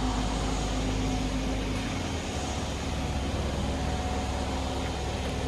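Truck engine running steadily, a low hum whose lowest note shifts about two seconds in.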